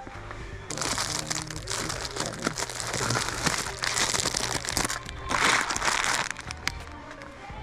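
Crinkling and rustling of packaging being handled, loudest about two thirds of the way in, over faint background music.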